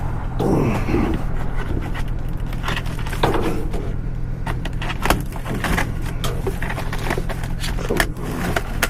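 Plastic snack packages rubbing, scraping and knocking against a cardboard box as they are pushed back into it, with scattered light knocks, over a steady low hum.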